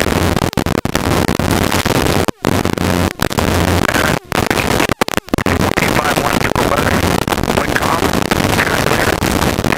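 Helicopter cockpit noise heard through the headset intercom: a steady hiss over a low hum, with a faint radio voice underneath, likely the ATIS broadcast being monitored. The audio cuts out briefly several times, at about two, four and five seconds in.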